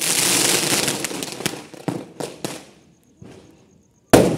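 Aerial fireworks bursting: a crackling hiss that fades over about two seconds, with a few separate pops in it, then a sharp bang about four seconds in followed by another crackling hiss.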